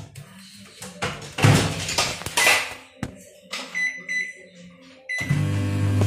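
Microwave convection oven being loaded and started: a glass bowl set on the turntable with some clattering, the door shut with a click about three seconds in, a few short keypad beeps, then the oven starting up with a loud steady hum near the end.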